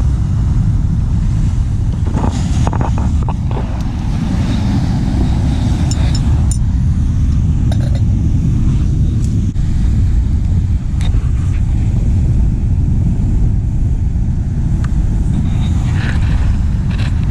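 Steady low rumble of wind buffeting the microphone, with a few faint clicks and ticks.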